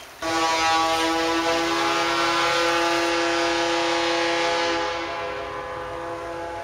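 A loud horn sounds one long steady blast of several tones at once, starting suddenly. After about four and a half seconds it drops to a lower level and carries on.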